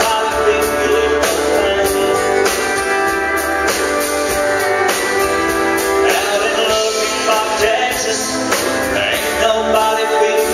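Live country band playing: a male singer with acoustic guitar, backed by pedal steel guitar and drums keeping a steady beat.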